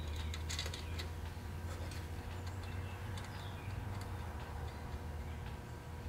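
Light clicks and taps of a wire terminal and small terminal nut being fitted by hand onto a tractor's wiring terminal, over a steady low hum.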